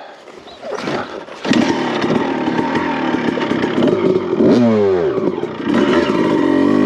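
2001 Honda CR250's single-cylinder two-stroke engine revving hard under load on a steep climb. It comes up loud about a second and a half in, and the revs dip and climb again a little past the middle before holding high.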